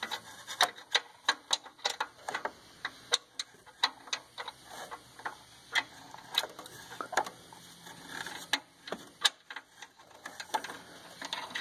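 Irregular light clicks and taps, about two a second, as a new exhaust gas temperature sensor is worked by hand into its threaded port on a diesel exhaust, tricky to get started in the hole.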